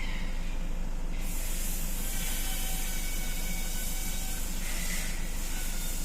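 Toyota Innova diesel engine running at idle, with a loud steady hiss of air or spray starting about a second in.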